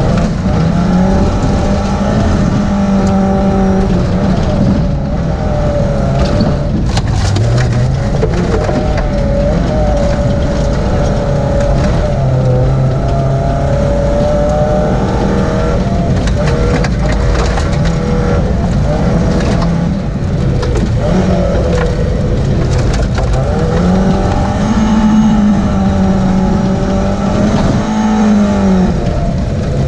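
Rally car engine heard from inside the cabin at full effort, revving up and dropping back again and again through gear changes and corners. Scattered short knocks come from loose gravel thrown against the car.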